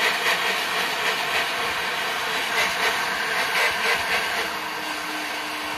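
EGO battery-powered leaf blower running steadily, pointed straight up, with a rush of air. A low steady hum joins in about four and a half seconds in.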